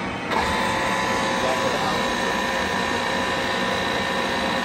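1991 TOS SU100 engine lathe running, with the steady whine of its power feed driving a slide that starts suddenly a moment in.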